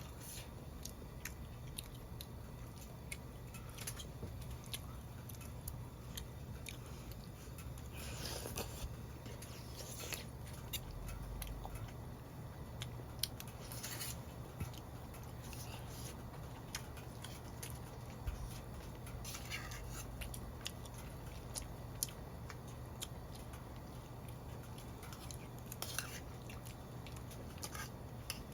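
Scattered small clicks and taps of objects being handled, with a few brief scraping or rustling sounds, over a steady low hum.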